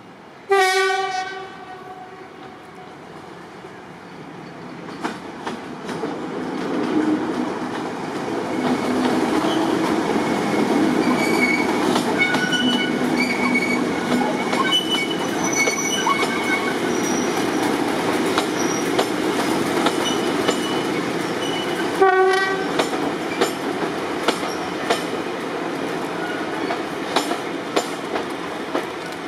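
BR Class 37 diesel locomotive sounding its horn in a loud blast about half a second in, then its English Electric V12 engine and the train of Mk1 coaches growing louder as it passes. There are intermittent wheel squeals on the curve, a second, shorter horn blast about three-quarters of the way through, and rhythmic clicking of wheels over rail joints near the end.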